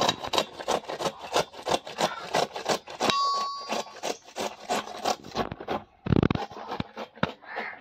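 A carrot rubbed up and down a stainless steel grater, quick regular rasping strokes. About six seconds in there is a brief, louder dull knock.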